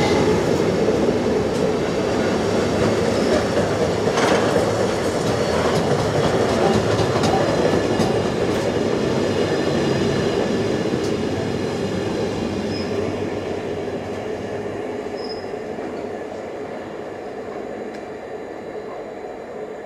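Freight train of loaded intermodal container wagons rolling past on the rails, a steady rumble with occasional sharp clicks from the wheels. The sound fades away steadily over the second half as the end of the train passes and draws off.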